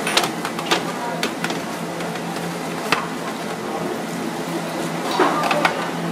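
A stainless steel tray clinking and knocking on a steel counter as pieces of cut fish are laid on it and the tray is handled: several short, sharp knocks over a steady background hum, with a quick cluster of them about five seconds in.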